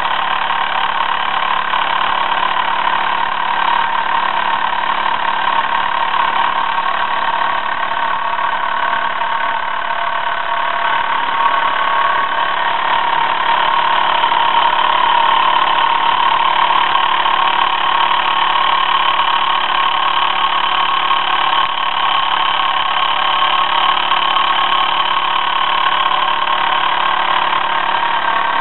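1953 Mamod Minor 2 toy steam engine running steadily under steam, with a continuous hissing sound from its single oscillating cylinder and exhaust.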